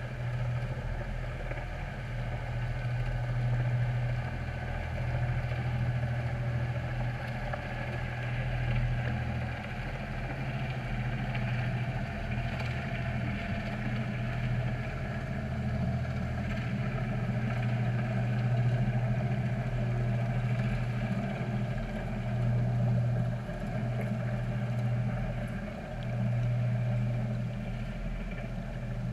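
Boat engine noise heard underwater through a GoPro's housing: a steady low drone that dips briefly now and then, with fainter higher hum lines above it.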